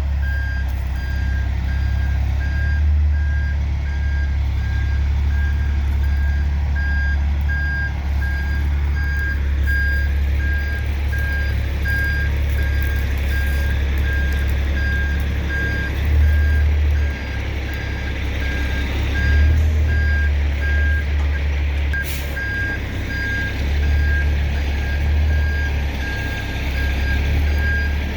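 A truck's backup alarm beeping in a steady, even rhythm while it reverses, over the low, steady rumble of its running engine.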